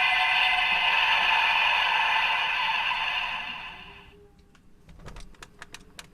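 Electronic sound effect from a Bandai DX R/B Gyro transformation toy's speaker, fading out over about four seconds, followed by a quick series of sharp plastic clicks as the toy is worked.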